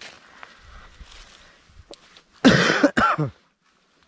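A person coughing twice in quick succession, close to the microphone, about two and a half seconds in. The second cough is shorter and falls in pitch.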